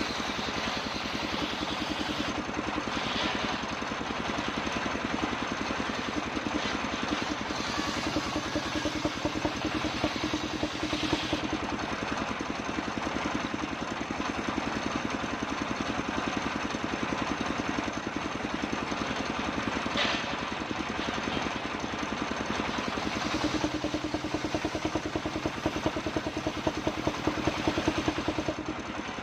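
Engine driving a homemade circular sawmill, running steadily with a fast, even chatter. Its tone grows stronger and a little louder for a few seconds near the middle and again near the end.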